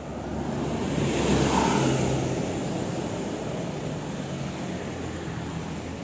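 Large tour coach driving past close by: engine and tyre noise swell about a second in, then slowly fade as other traffic follows.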